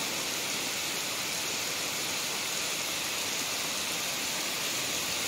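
Steady, even hiss of noise with no rhythm or change in level.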